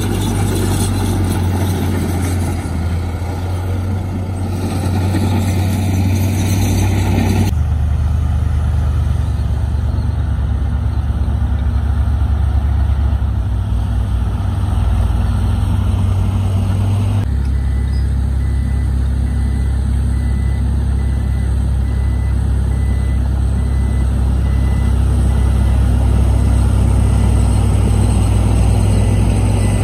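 Diesel engines of heavy loaded dump trucks, a Dongfeng among them, running steadily with a low hum. The engine note changes abruptly about 7 seconds in and again about 17 seconds in.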